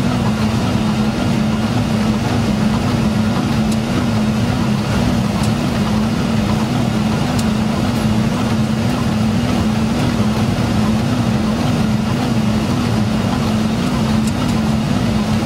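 Aircraft engines droning steadily on final approach to a runway, a constant rushing noise with a strong low hum that wavers in a regular, pulsing beat.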